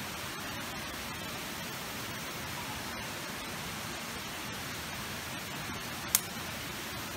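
Steady, even hiss with one sharp click about six seconds in.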